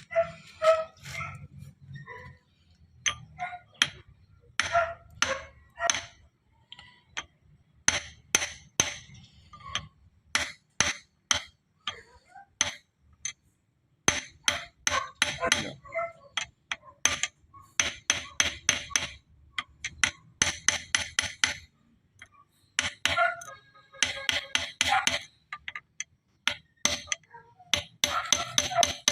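Hammer tapping on steel transmission parts, with a sharp metallic ring on each blow. The blows come in irregular runs, at times several a second, as parts of a manual gearbox being overhauled are knocked into place.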